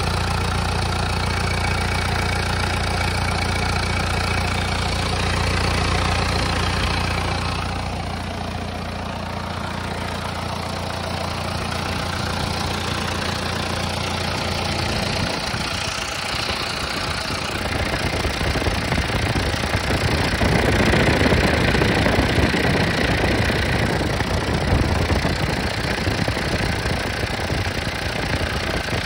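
Perkins diesel engine of a TUG MA50 baggage tow tractor running at idle with its hood open. From about halfway through it becomes louder and rougher, and the steady tone gives way to clatter.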